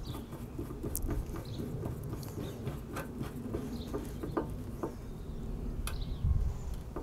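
Screwdriver turning screws down into the top of a motorcycle fuel tank, with several faint clicks and scrapes of metal on metal over a steady low outdoor rumble.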